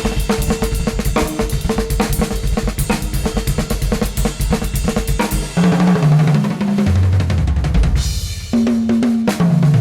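Instrumental music led by a drum kit playing a busy beat, with bass drum, snare and cymbals over a held note. About halfway through the arrangement shifts to a moving bass line; near the end there is a brief break, then the drums come back in.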